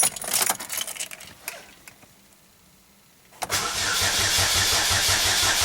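A few light key clicks, then a pause, then about three and a half seconds in the 2007 Chevy Cobalt's 2.2 L Ecotec engine is cranked over on the starter with an even, rapid pulse and does not catch. This is the car's no-start fault: it turns over but won't fire.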